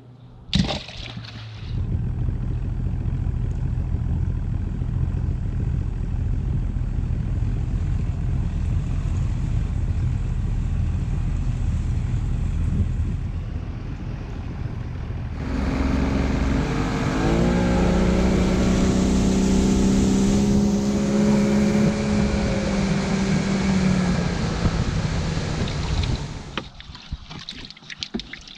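Boat motor running steadily, then throttling up about halfway through: its pitch rises and wind and water rush as the boat picks up speed, before it eases off near the end. A sharp knock sounds just as it starts.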